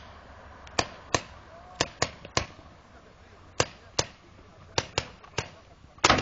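Paintball markers firing: about a dozen sharp pops at an irregular pace, some in quick pairs.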